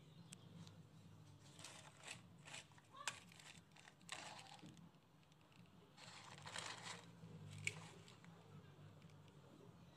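Faint handling of a plastic toy truck loaded with glass marbles on a wooden plank: soft scraping and rustling, with a few sharp clicks of marbles or plastic.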